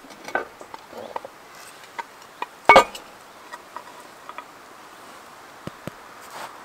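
Cast iron Dutch oven lid, covered in hot briquettes, being worked off with a lid-lifter hook: scattered light clinks and scrapes, and one loud metallic clank a little under three seconds in.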